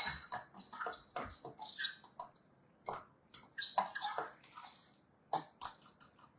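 A spoon stirring cocoa powder into icing sugar in a small glass bowl: irregular light scrapes and clinks against the glass, with a sharper clink right at the start.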